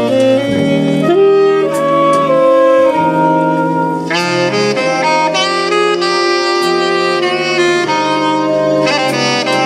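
A saxophone orchestra playing sustained chords, the harmony moving about once a second; the sound grows brighter and fuller about four seconds in.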